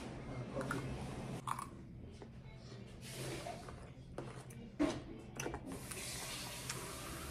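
A few faint clicks and knocks from spoon-feeding a toddler out of a plastic bowl on a high-chair tray. A steady hiss starts near the end.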